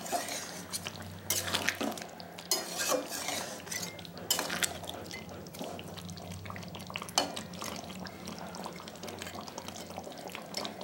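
Metal spatula stirring chicken curry in a metal kadai, with irregular scrapes and clinks against the pan and the wet sound of thick gravy being turned over.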